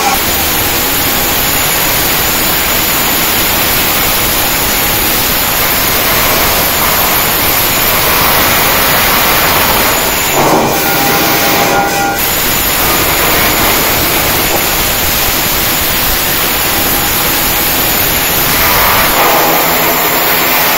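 Flux-cored arc welding overhead: the arc's steady crackling hiss, with two brief sharp noises about halfway through.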